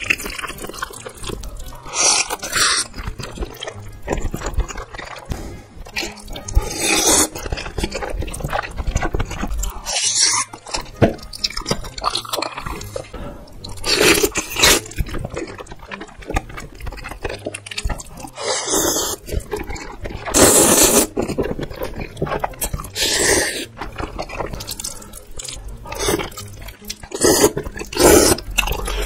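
A person slurping mouthfuls of spicy stir-fried instant noodles off chopsticks, a long wet slurp every few seconds.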